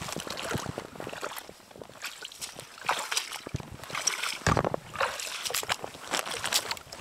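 Footsteps in boots splashing and squelching through shallow water and soaked bog, with some steps landing on a wet wooden plank. The steps come unevenly, a few landing louder than the rest.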